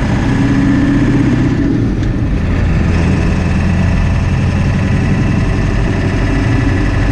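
A 1997 Ford F-350 pickup's engine running at a steady pace, without revving up or down.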